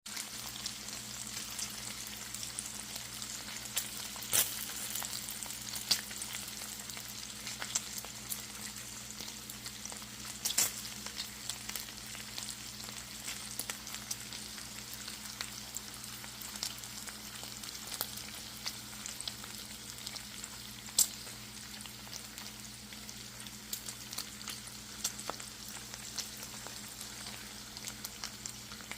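Food frying: a steady sizzling hiss with scattered sharp crackles and pops, a few of them much louder than the rest, over a faint low hum.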